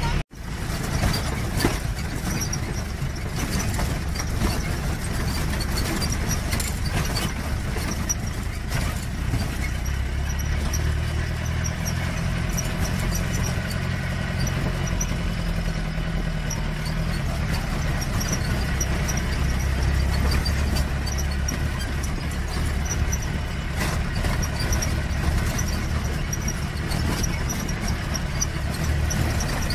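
Jeep engine running with road noise, heard from on board while driving, with its engine note shifting partway through. The sound cuts out briefly just after the start.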